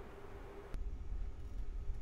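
Quiet room tone in a pause before piano playing: a low rumble and faint hiss, with a single sharp click under a second in, after which the rumble becomes stronger.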